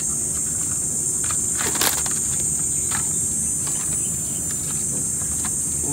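Steady high-pitched chorus of crickets, with a few short clicks and knocks from handling, the sharpest about two seconds in.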